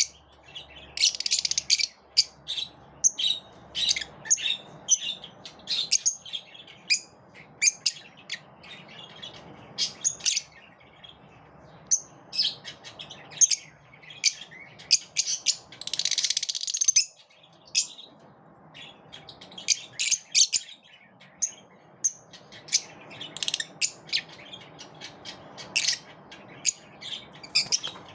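Pet lovebirds chirping in rapid short, high calls, with denser bursts of chatter about a second in and again around the middle.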